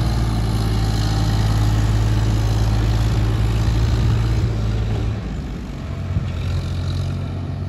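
Sonalika DI 35 tractor's diesel engine running steadily as it pulls a fully loaded soil trolley. About five seconds in, the engine note drops and becomes quieter.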